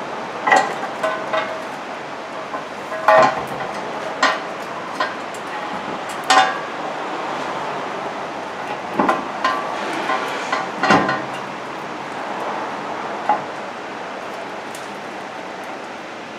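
Metal hand tool clinking and tapping on the front steering knuckle while a stuck ABS wheel-speed sensor is worked loose: about a dozen short, irregular metallic knocks, some with a brief ring, over steady shop background hiss.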